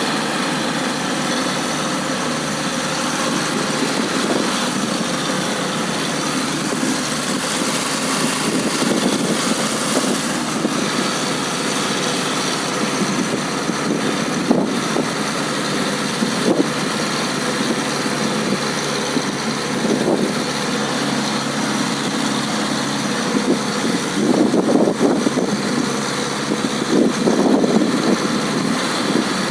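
A small engine running steadily, with irregular low rumbling surges.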